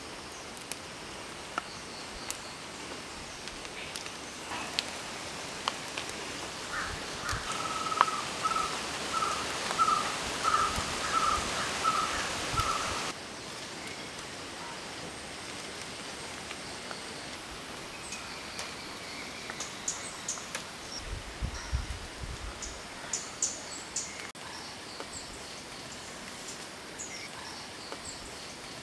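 Outdoor ambience among trees: a bird repeats one short call about twice a second for several seconds, then cuts off suddenly. Scattered high chirps follow later over a steady background hiss.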